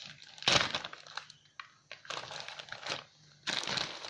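Plastic packaging crinkling and rustling in three bursts as squishy toys are handled.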